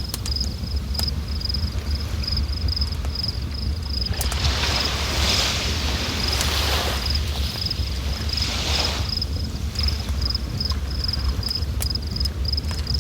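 River water flowing and rushing steadily, with a low rumble and a louder surge of hiss about four seconds in and again near nine seconds. A high, rapid pulsing chirp, about four to five pulses a second, sits over the water.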